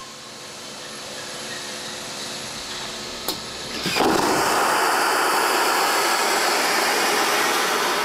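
Airbus A380 vacuum toilet flushing on a waste-system test rig. A steady hum builds and there is a single click, then at about four seconds the valve opens and air is sucked into the evacuated pipes with a loud, even rush that lasts about four seconds.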